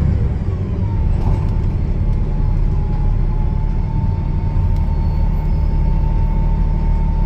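Gillig Low Floor transit bus's diesel engine running with a loud, steady rumble. Over it, a thin whine glides down about a second in and then holds steady.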